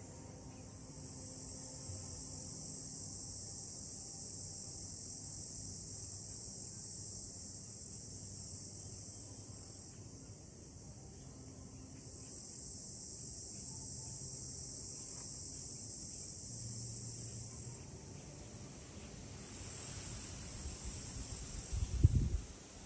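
A steady, high-pitched chorus of insects that swells and fades in long waves lasting several seconds. A brief low thump near the end.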